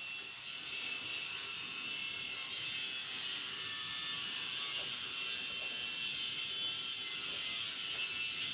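A steady, high-pitched rattling buzz.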